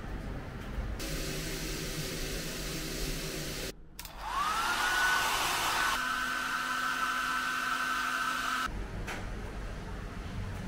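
Hair dryer running: a steady rush of air with a low hum that breaks off suddenly, then the motor starting again with a whine that rises and levels off into a steady high whine over the rush of air, before shutting off near the end.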